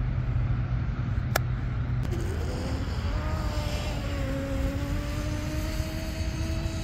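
RC boat's 3674 2200 kV brushless motor on 4S whining as the mono-hull boat accelerates at full speed. The whine rises about two seconds in, then holds a steady pitch over a low rumble, with a single sharp click about a second in.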